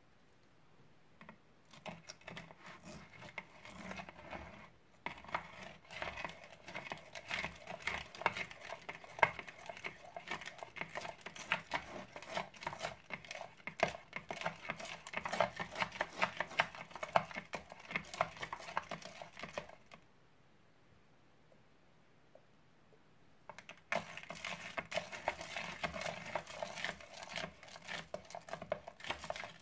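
Crunchy slime full of foam beads being stirred and kneaded by hand, the beads giving off a fast, dense crackling and popping. The crackling stops for a few seconds about two-thirds through, then starts again.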